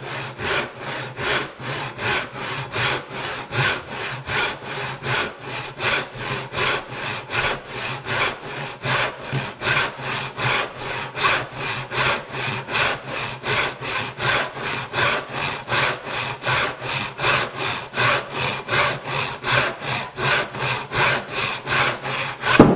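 Hand crosscut saw sawing across a radiata pine board in steady, even strokes, about two a second. A single sharper, louder sound comes just before it stops.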